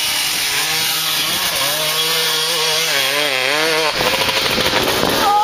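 Two-stroke dirt bike engine revving, its pitch wavering up and down with the throttle; the sound changes about four seconds in.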